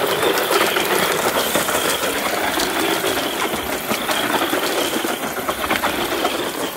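LiPo-powered electric RC truck driving hard on loose gravel: a steady high motor and gear whine, with gravel crunching and spraying under the spinning tyres as it skids through turns.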